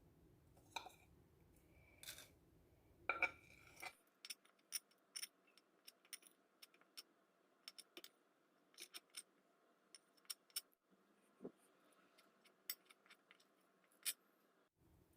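A spoon stirring dry ground spice powders in a container, giving irregular light clicks and scrapes against the container. A few louder knocks come in the first few seconds, then faint quick taps.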